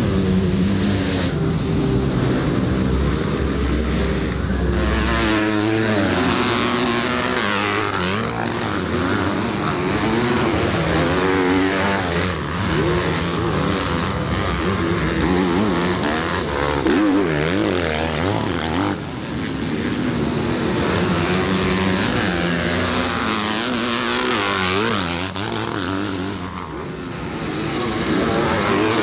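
Several motocross dirt bikes racing on a dirt track, their engines revving hard and overlapping, rising and falling in pitch with throttle and gear changes as they pass.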